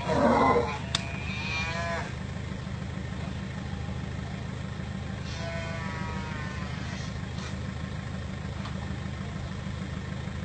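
Water buffalo bawling as it is forced up into a truck: a drawn-out call about a second in and another around the middle, over a steady low rumble.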